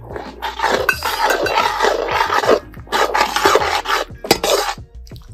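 Spatula scraping and stirring in a pan as cornflour slurry is worked into the sauce to thicken it: long scraping strokes, then a few shorter ones near the end.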